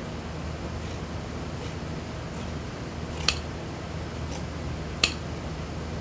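Large tailor's shears cutting through suit jacket fabric in a series of strokes, with two sharp metallic snaps of the blades about a second and a half apart in the second half.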